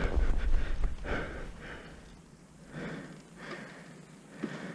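A person breathing hard close to the microphone: several heavy, gasping breaths about a second apart, over a low rumble in the first second.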